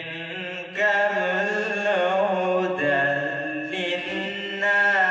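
A man's voice chanting a Quran recitation (tilawat) in the long-drawn melodic style, holding each note with a wavering, ornamented line. It steps louder about a second in and again near the end.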